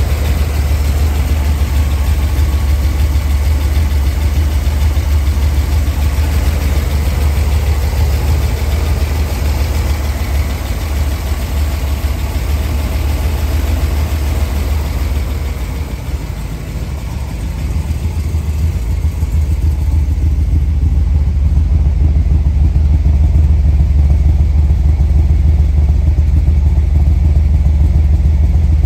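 A Holden 4.9-litre carburetted V8 in a 1986 VL SS Group A idles steadily with a deep, even rumble and no revving. For the last part it is heard at the tailpipe, where the low exhaust note is fuller and the engine-bay clatter drops away.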